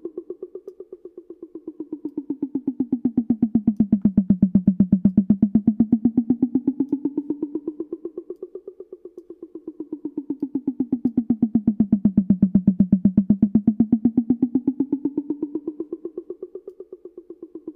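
A short drum sample repeated rapidly in a fast, even stream, automated in a DAW. Its pitch slides down and back up twice while it grows louder on the way down and fades on the way up, with reverb swelling as it fades. The automation makes the drum seem to move toward and away from the listener in a 3D sound image.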